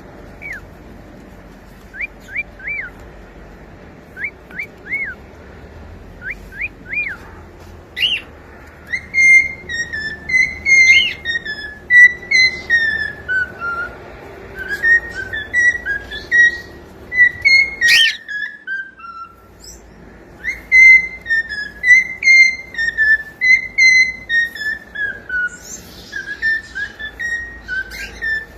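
Cockatiel whistling: first short rising chirps in quick groups of three, then a long warbling whistled tune that rises and falls, broken off briefly about two-thirds of the way through.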